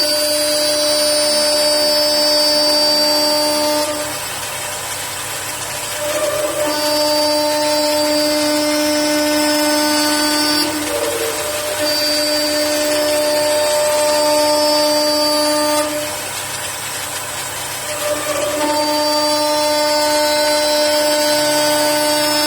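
CNC wood-turning lathe running, its motors giving a steady whine in stretches of several seconds, each broken by a short slide in pitch as the speed changes, over the noise of the machine working wood.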